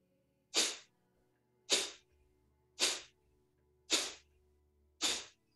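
Forceful exhalations through the nose at a steady pace of about one a second, five in all, each a short sharp hiss that fades quickly: breath of fire, the Kundalini yoga pumping breath driven from the navel, done at a slow pace.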